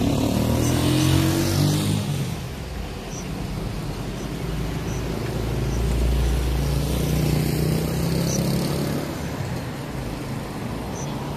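Street traffic: a car drives past close by at the start, then a small motorcycle passes about six seconds in, over a steady traffic hum.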